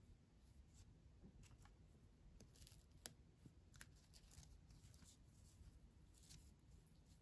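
Faint scratching and rustling as gloved hands pull the tape out of a small toy tape measure, with a single sharp click about three seconds in.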